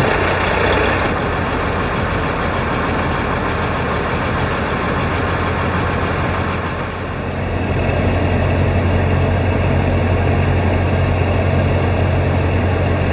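Kenworth W900 semi truck's diesel engine running at low speed, a steady low drone that grows louder about seven seconds in.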